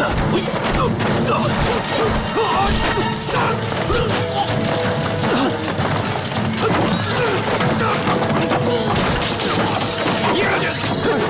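Fight-scene sound effects: a rapid run of hits, thuds and crashes over action music.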